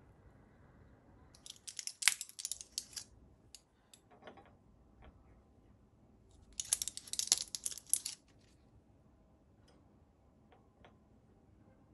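Faint hiss of a gas stove burner's flame, which stops about a second and a half in. Then come two spells of dense, sharp crackling handling noise, each about a second and a half long, with a few light clicks and taps between and after them.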